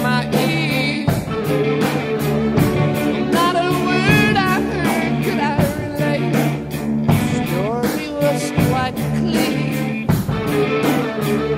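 Rock song with a singing voice over a steady drum beat.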